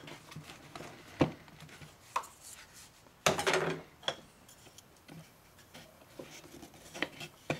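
A long steel bolt being pushed through a hole in an MDF board: a few light knocks and clicks of metal against wood, with a louder scraping rattle a little over three seconds in.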